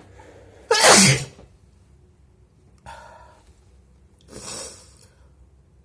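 One loud, wet sneeze about a second in, its pitch falling at the tail. Two much quieter breathy sounds follow it.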